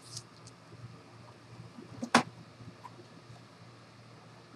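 Scanner lid of an Epson XP-series all-in-one printer shutting with one sharp plastic clack about two seconds in, after a few faint ticks of a sheet being laid on the glass. A low steady hum runs underneath.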